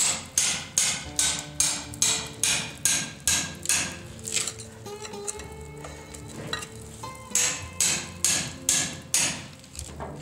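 Hand hammer striking a long steel chisel bar, breaking out wooden formwork from a chimney opening in a concrete slab: a run of about ten quick, evenly spaced blows, a pause of a few seconds, then about six more.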